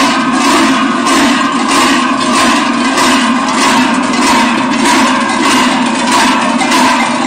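A group of large Swiss Treicheln (forged sheet-metal cowbells) worn on the hips by marching masked figures, clanging together continuously. The bells are swung in a steady rhythm with the walkers' strides.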